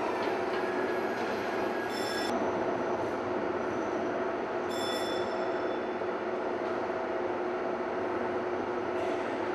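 Steady mechanical hum with a constant low tone, broken by two brief high-pitched squeaks about two and five seconds in.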